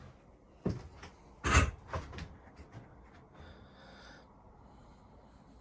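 A few knocks and clicks: a sharp, loud knock about a second and a half in, with a lighter knock before it and several small clicks after, then a brief faint hiss.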